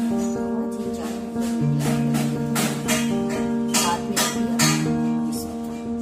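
Instrumental background music: steady held chords with strummed or plucked strings on top.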